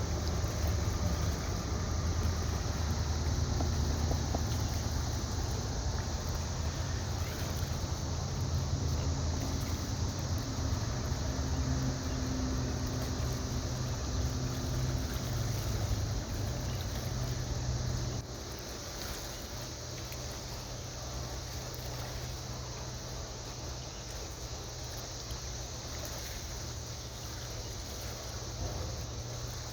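Boat engine running with a steady low rumble, which drops to a quieter level about eighteen seconds in.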